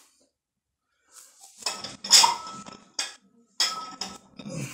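A loaded 60 kg barbell clinking and rattling as it is hoisted from the hips up onto the shoulders. Its loudest clatter comes about two seconds in, and a brief metallic ring sounds twice.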